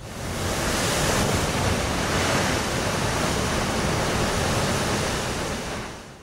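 Ocean surf sound effect: a steady wash of breaking waves that swells in over the first second and fades out near the end.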